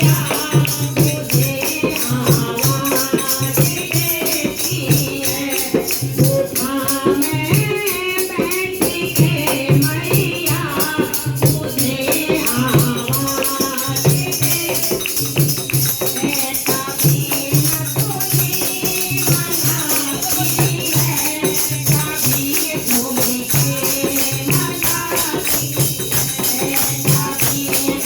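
Devotional bhajan music: a steady, even beat with dense jingling percussion and a wavering melody line over it.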